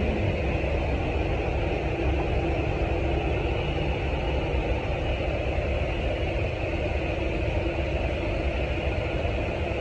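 Steady low machinery drone with a constant hiss above it, heard from inside an airliner's cargo hold; it holds level without change.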